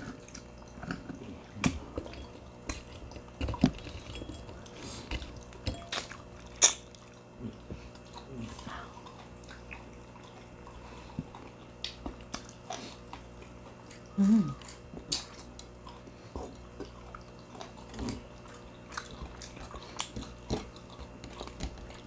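Close-miked eating: chewing, biting and wet mouth sounds with scattered sharp clicks and crunches, the sharpest about a third of the way in, and a brief low hum-like voice sound about two-thirds through.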